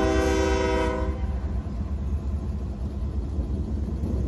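Norfolk Southern diesel freight locomotive's air horn sounding a steady multi-note chord, which stops about a second in. It gives way to the low rumble of the diesel engine and the covered hopper cars rolling past close by.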